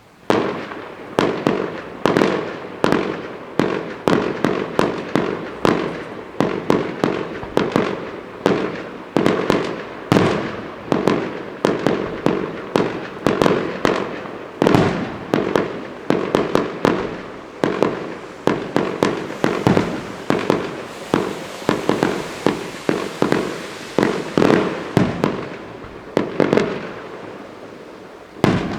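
Fireworks display: a rapid barrage of shells bursting, two or three sharp bangs a second, each with an echoing tail. About two-thirds of the way through, a hissing crackle joins the bangs, and the barrage thins toward the end.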